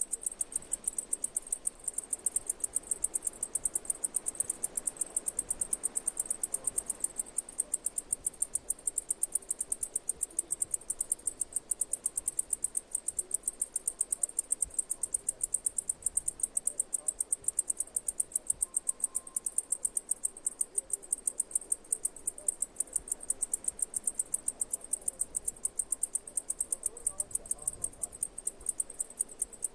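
Insect chirping in a rapid, even rhythm of high-pitched pulses that keeps going without a break.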